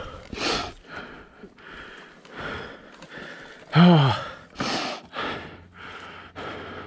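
A person breathing hard in quick, heavy breaths, with one loud voiced grunt about four seconds in.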